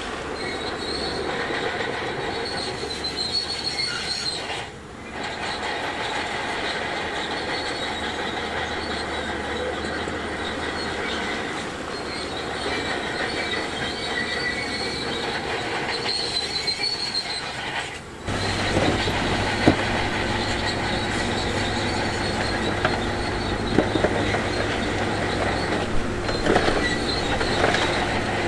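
Crawler bulldozer working: the diesel engine runs steadily while its steel tracks squeal and clank. About 18 seconds in the sound changes abruptly to a steadier low engine hum with a few sharp knocks.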